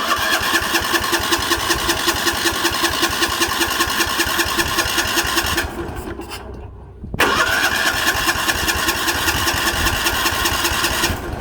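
Starter cranking the Sears 10/6 lawn tractor's aftermarket engine, choked and throttled down, in two long tries of about five seconds each with a short pause between, the engine turning over in an even beat without catching.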